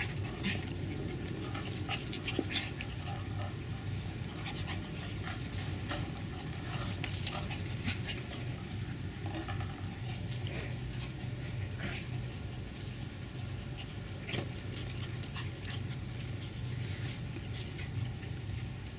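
Mi-ki toy dog moving about close to the microphone, with scattered sharp clicks over a steady low hum.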